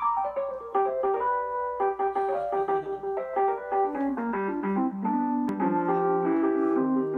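Piano playing an accompaniment: quick notes stepping downward, then a steady run of notes with lower notes joining about halfway through.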